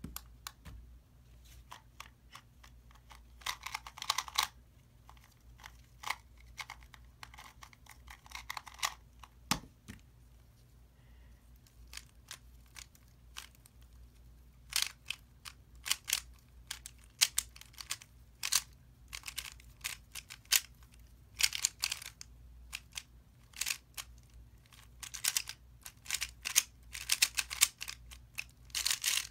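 Plastic speedcubes being turned quickly by hand, first a Qiyi MS 2x2 and then a Moyu RS3M 2021 maglev 3x3: fast runs of clicking and clacking layer turns, broken by short pauses, busiest in the second half.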